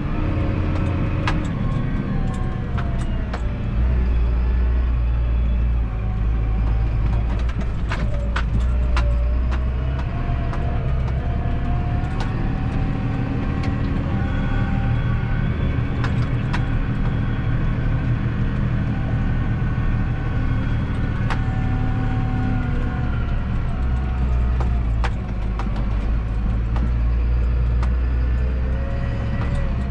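Massey Ferguson 7718S tractor's six-cylinder diesel engine running as it drives, heard from inside the cab, its pitch rising and falling slightly, with scattered clicks and rattles.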